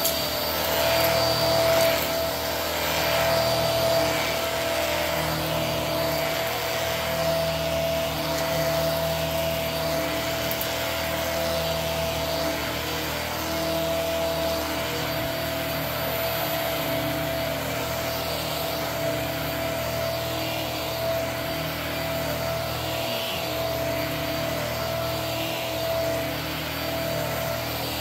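Hart upright vacuum cleaner running steadily with a constant whine, its head rubbing across the rug pile as it is pushed back and forth.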